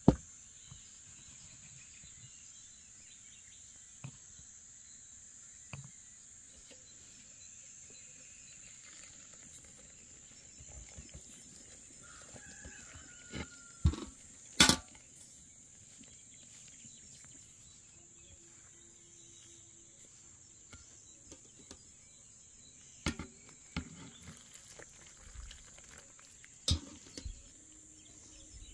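Insects keeping up a steady high buzzing in the background. Now and then there are sharp knocks and clinks of hands and utensils against a metal bowl and kettle while dough is mixed by hand, the loudest a little past halfway.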